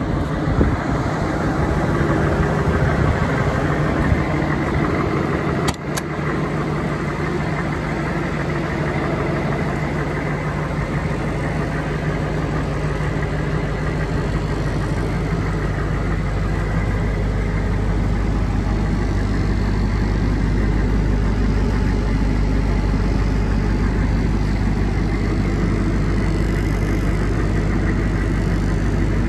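Humvee M1167's turbo-diesel V8 idling steadily, with one sharp click about six seconds in. From about the midpoint the idle is heard from inside the cabin, where its low hum is stronger.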